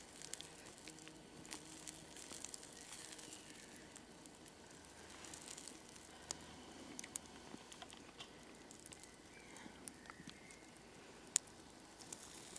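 Faint, scattered crackles and ticks from a low campfire of embers and dry leaf litter, with one sharp click near the end.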